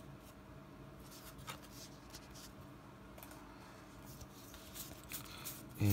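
Faint rustling and light scraping of Pokémon trading cards being handled and slid against one another, a few soft rustles scattered through, over a steady low hum.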